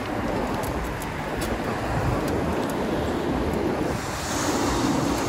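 Steady rushing wind on the microphone of a moving bicycle, with road and passing-traffic noise beneath.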